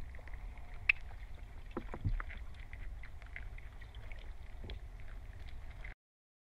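Low rumbling ambient soundtrack noise with scattered faint clicks and crackles, cutting off abruptly about six seconds in.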